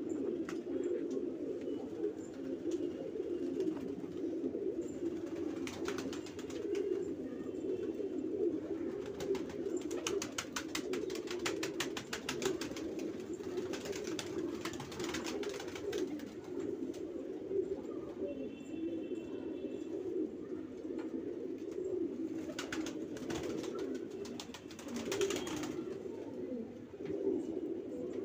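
A flock of Banarasi domestic pigeons cooing, many birds overlapping in a continuous low, throaty drone.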